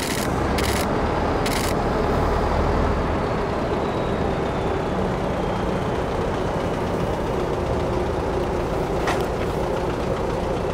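Diesel engine of a heavy-haul tractor-trailer running steadily as it pulls away through a junction, with a faint hum of other traffic. Several short bursts of hiss in the first two seconds.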